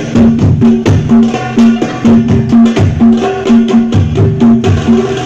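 Hadrah percussion ensemble jamming: a darbuka and other hand drums play a fast, steady rhythm of sharp strokes over deep bass-drum hits about twice a second.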